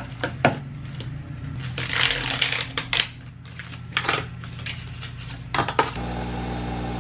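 Aluminium coffee capsules clinking and rattling as they are handled and set into a glass pod holder. About six seconds in, a Nespresso machine brewing takes over with a steady motor hum.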